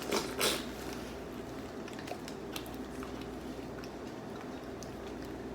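A person eating a seafood boil: chewing and wet, saucy squishing, with two louder short sounds in the first half-second and then scattered faint clicks.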